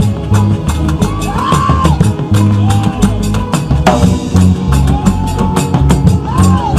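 Loud music with a busy drum-kit beat and a pulsing bass line, over which a lead melody slides up and down in pitch.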